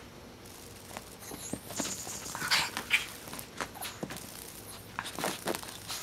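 Miniature pinscher playing with a cicada on carpet: scattered paw taps and scuffs, with a few short noisy bursts, the loudest a little past the middle.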